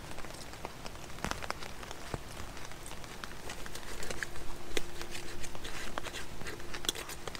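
Rain falling on the fabric of a Luxe Hexpeak tent, with scattered sharp clicks of a knife and fork against a metal pan.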